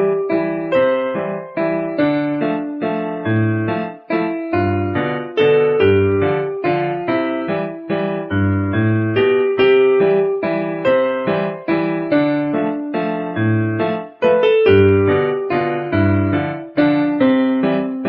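Background music: electric piano playing a light, evenly paced melody of plucked-sounding notes over a simple bass line.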